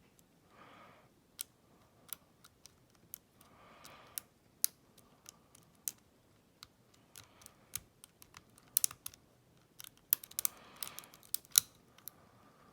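Lock pick and tension wrench working in a five-pin Schlage deadbolt cylinder: irregular small metallic clicks and ticks as the pins are set, coming thicker about nine to eleven seconds in, with a few short soft rustles between.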